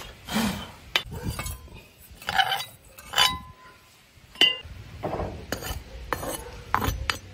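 Metal trowel scraping and knocking against a freshly cast aluminium wok while sand is cleared off it: scattered clinks and scrapes, some with a brief metallic ring.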